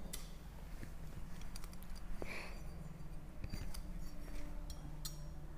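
Faint clicks and small handling noises from a hand-held metal lemon squeezer as lemon halves are pressed, over a low steady hum.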